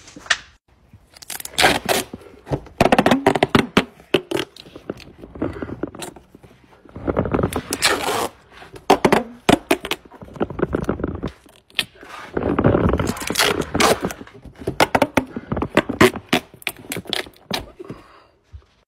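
Duct tape being pulled off the roll and pressed onto a cardboard hull: irregular ripping and scraping bursts, one after another.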